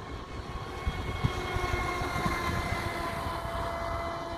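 Electric motor of a ready-to-run RC speedboat running at speed, a steady high whine with several tones held together. There is a low wind rumble on the microphone under it.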